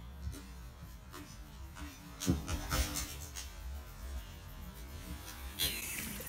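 Mountain bike rolling down low brick steps, with a couple of short knocks as the wheels come off the step edges, then a brief louder rush of tyres and rattle as it rides close past, over a low steady hum.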